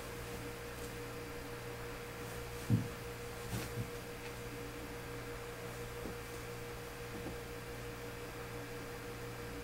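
Steady electrical mains hum with a faint steady tone above it. A few soft thumps sound about three seconds in.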